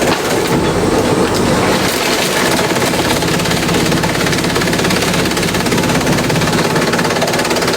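Industrial bamboo shredder running loudly and steadily, with a dense, fast rattling chatter.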